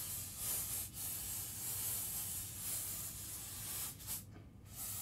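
Air duster can held upside down, spraying its liquid propellant as freeze spray in hissing bursts onto a TV's processor and RAM, cold-testing for a temperature-sensitive fault. The hiss breaks briefly about a second in, stops about four seconds in and starts again near the end.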